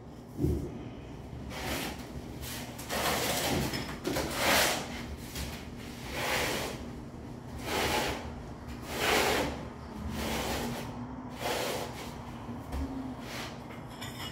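Steel trowel scraping and spreading thinset tile mortar across the floor in repeated strokes, roughly one every one to two seconds, with a dull thump about half a second in.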